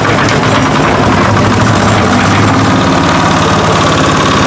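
Tropic single-cylinder diesel engine on a concrete mixer running steadily with a fast, even chugging, freshly started and catching straight away after months of standing unused.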